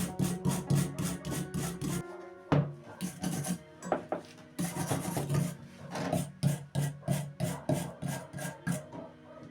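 Rhythmic hand scraping strokes on rusty metal, about four to five strokes a second, breaking off about two seconds in for a few separate strokes and picking up again about halfway through.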